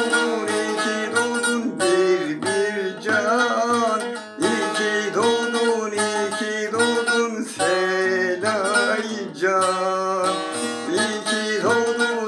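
Bağlama (long-necked Turkish saz) strummed in a steady rhythm, with a man singing a folk-style song over it at times.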